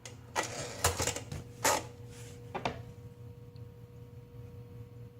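Four separate clacks from a plastic-bodied Underwood 378 portable typewriter, spaced irregularly over the first few seconds as the type test ends, then only a faint steady hum.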